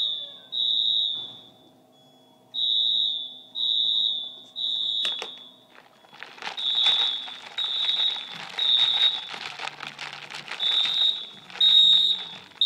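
EST fire alarm horn sounding a high-pitched tone in the temporal-three pattern: three long beeps, a pause, then three more, repeating. This is the standard evacuation signal. From about halfway through, a dense crackling noise runs under the beeps.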